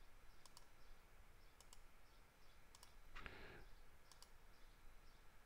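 Near silence with faint computer mouse clicks, a few scattered single and double clicks, and a brief soft noise about three seconds in.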